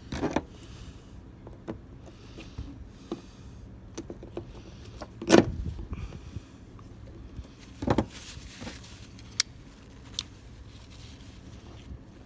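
Scattered knocks, clicks and handling noise of hand work on a small 12 V rocker switch and its wiring connectors, the loudest a thump about five seconds in, over a faint steady hum.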